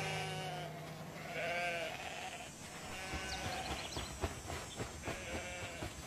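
A flock of sheep bleating, several calls overlapping and repeating, with scattered soft knocks in the second half.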